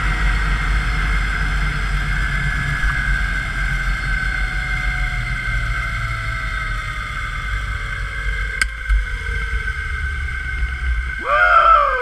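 Zip-line trolley wheels running on a steel cable, a steady high whine over wind rumbling on the microphone, with one tone sinking slowly in pitch as the rider slows toward the base station. Near the end a short sound slides down steeply in pitch.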